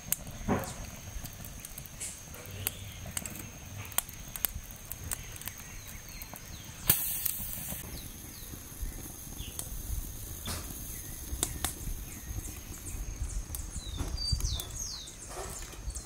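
Wood fire crackling inside a makeshift stove built from a washing-machine drum: scattered sharp pops over a low rumble of flame, with a brief hiss about seven seconds in. A few short bird chirps sound near the end.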